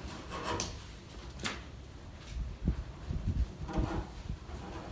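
Hatchet chopping into a squared wooden timber: a run of irregular short chops and knocks, some with a sharp slicing edge.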